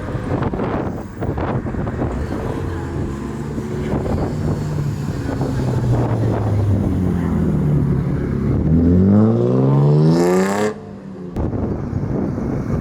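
Car engine running on track, easing off and then accelerating hard, its pitch climbing steeply for about three seconds before cutting off abruptly.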